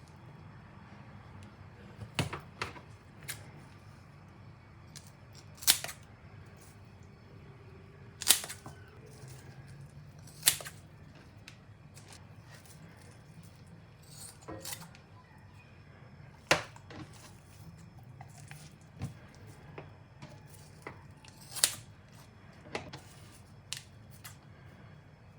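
Irregular sharp clicks and clacks of kitchen utensils and containers being handled, about a dozen spread out with several seconds between some, over a low steady hum.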